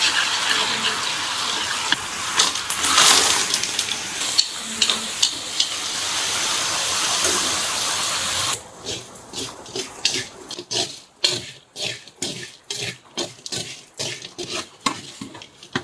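Water running steadily for about eight and a half seconds, then cutting off suddenly. A quick series of short, sharp knocks or scrapes follows, about three a second.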